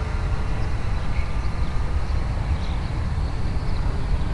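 Wind buffeting the microphone in a steady low rumble. Under it is the faint whine of a distant electric RC plane's geared motor and propeller, which fades out within the first second.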